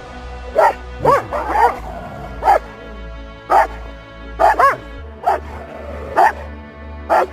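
A dog barking, single sharp barks about once a second with a quick double bark a little past halfway, over background music with a steady beat.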